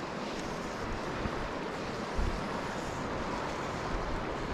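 Steady rush of river water flowing, with wind buffeting the microphone in low, uneven gusts.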